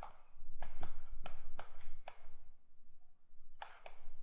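Computer mouse clicking while navigating 3D software: about six sharp clicks in the first two seconds, a pause, then two more near the end.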